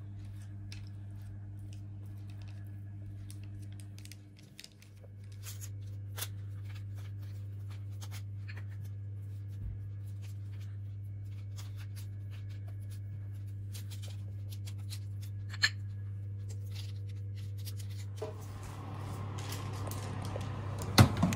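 Silicone pastry brush dabbing egg yolk onto soft dough balls on parchment paper: faint soft taps and paper rustles over a steady low hum. Near the end a broader rustling rises, then a few sharp knocks as the baking tray is handled at the oven.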